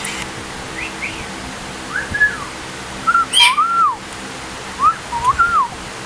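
Pet galahs giving a string of short rising-and-falling whistles, with a brief harsh screech midway. A faint steady hum runs underneath.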